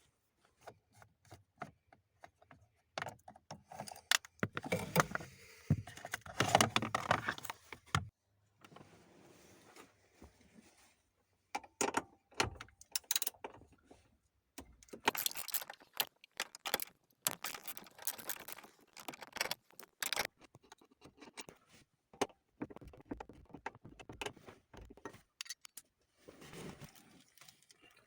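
Metal tools and small steel parts clinking and rattling in irregular sharp clicks, busiest from about four to eight seconds in and again from about twelve to twenty seconds in.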